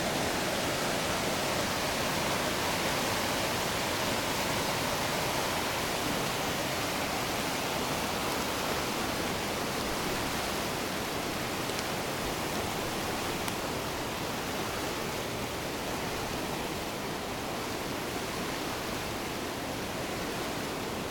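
Flooded Platte River, water rushing in a steady, even noise that eases slightly toward the end.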